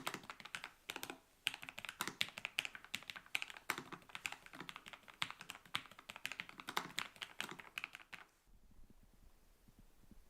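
Fast typing on a Lofree Flow low-profile mechanical keyboard: a quick run of light key clacks with a short pause about a second in. The typing stops about eight seconds in.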